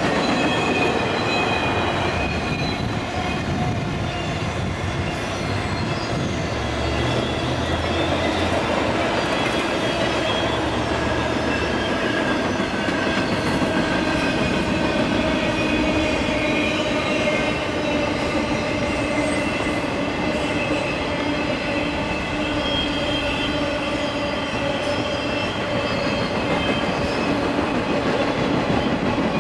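Empty Norfolk Southern double-stack freight cars rolling over a steel girder overpass: a steady rumble of wheels on rail, with several high squealing tones from the wheels drifting over it.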